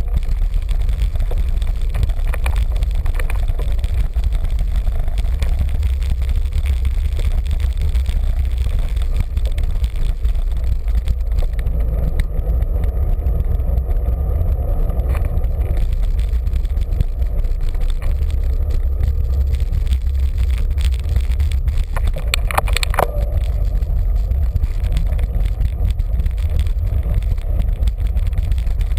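Steady low rumble of wind buffeting the microphone of a bicycle-mounted camera while riding, with road rumble from the tyres. There is a brief knock about three-quarters of the way through.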